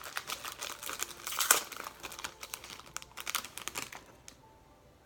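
Foil trading-card pack wrapper being torn open and crinkled, a dense irregular crackling that stops about four seconds in, followed by one last click.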